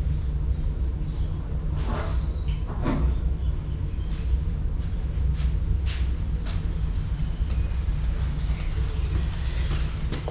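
Electric utility pump running with a steady low hum, with a few light clicks and knocks over it and a faint high whine in the second half.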